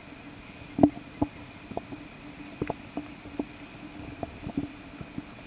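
Shallow pond water splashing as hands move in it while a bass is let go: a string of short, irregular plops and slaps, the loudest about a second in.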